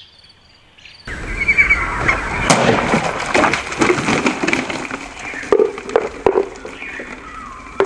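A chef's knife slicing through a row of five water-filled plastic bottles, the bottle tops and water tumbling and clattering onto a wooden board. It starts suddenly about a second in, with one sharp crack soon after and a few smaller knocks later, the whole thing drawn out over several seconds.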